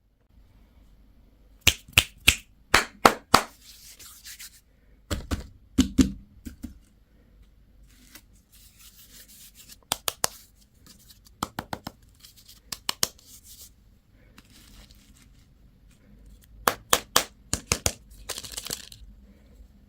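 Candy and toy packaging being opened by hand: quick clusters of sharp plastic clicks and snaps, with crinkling and tearing of wrapper between them.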